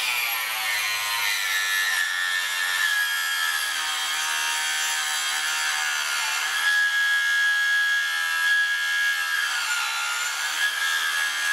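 Harbor Freight Mighty Mite 4-inch mini table saw running, its small universal brushed motor whining steadily as the stock 40-tooth plain steel blade is fed slowly through a piece of wood. The non-carbide blade barely cuts and burns its way through the wood rather than sawing it.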